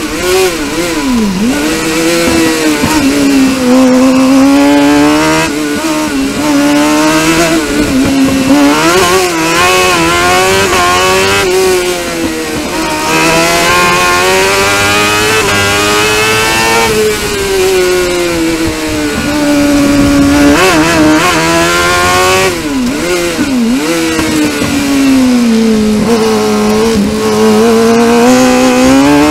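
Suzuki GSX-R750 inline-four motorcycle engine in a crosskart at full racing pace, heard onboard. It runs at high revs, near 12,000 rpm, and its pitch drops sharply on lifts and downshifts and climbs again under acceleration several times.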